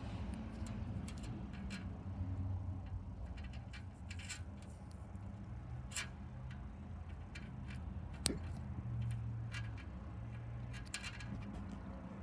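Light handling noise: scattered small clicks and taps, with one sharper click about eight seconds in, over a low steady hum.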